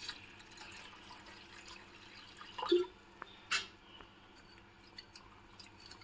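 Water being poured into a glass bowl of rice, tailing off within the first couple of seconds, then scattered drips. There is a sharp knock about three and a half seconds in.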